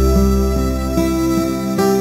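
Instrumental background music with long held notes over a steady bass.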